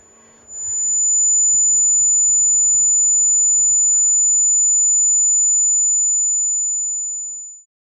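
A single steady high-pitched ringing tone, like a tinnitus effect, that swells up about half a second in, holds, then fades and cuts off abruptly just before the end. Under it, a faint murmur of background voices dies away.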